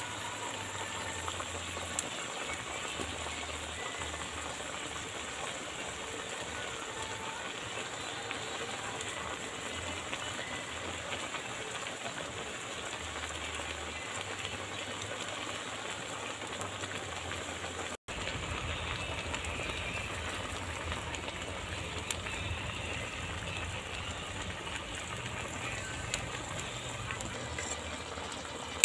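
Squash and string beans simmering in coconut milk in a pot, with a steady sizzling and bubbling.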